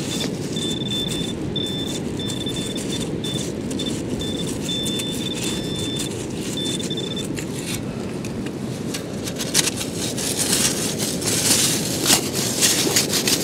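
Metal detecting pinpointer beeping at a steady high pitch as it is probed into a hole in beach shingle, the tone broken into short and longer beeps for about seven seconds, over heavy wind rumble on the microphone. Near the end, shingle stones crunch and rattle as the hole is dug.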